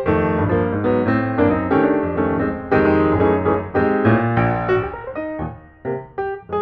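Background piano music, a quick run of struck notes over a bass line.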